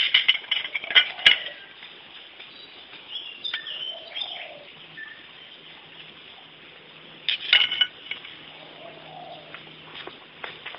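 Birds chirping in the background, with clusters of sharp clicks near the start and again past the middle.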